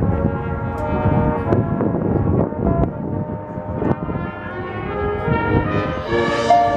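Marching band playing: brass holding sustained chords over drum hits, with cymbals swelling near the end.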